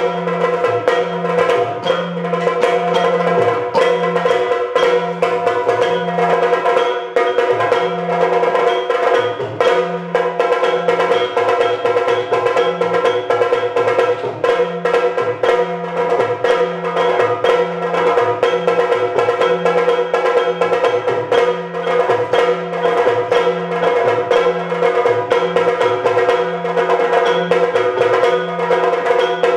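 Yakshagana percussion accompaniment for a dance: rapid, sharp chende drum strokes and low pitched drum beats in a quick changing rhythm over a steady drone.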